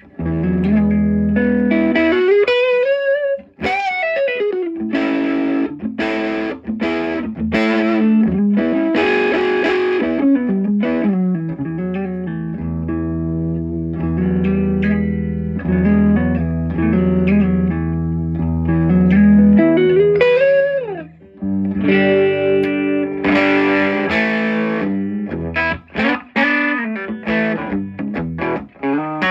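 Les Paul electric guitar played through a Fender '57 Custom Deluxe 5E3 tweed amp turned wide open into a WGS G12Q speaker, breaking up into overdrive. Chords and string bends, with brief stops about 4 seconds and 21 seconds in.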